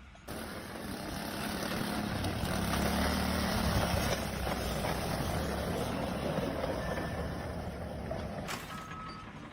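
A machine's engine running with a dense, noisy sound and a strong low rumble. It builds to its loudest a few seconds in, eases off, and cuts off shortly before the end.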